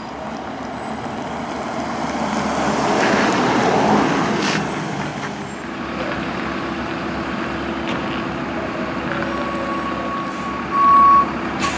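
Ambulance driving past, its engine and tyre noise swelling to a peak about four seconds in and then fading. After it, a steady low engine hum. Near the end a steady high beep sounds, loudest for about half a second.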